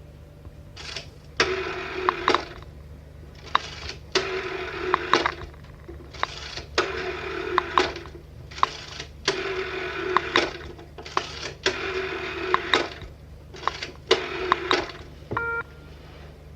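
Telephone bell ringing in a repeating pattern of a short ring followed by a longer one, about every two and a half seconds, six times over. A click and a brief beep come near the end.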